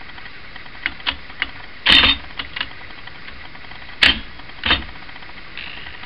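Mechanism of a Hammond Multiplex typewriter clicking and clacking as it is worked: a few light ticks, then sharper clacks, the loudest about two and four seconds in. The type shuttle swings sluggishly on a bad key, which the owner puts down to the machine not having been oiled in a while.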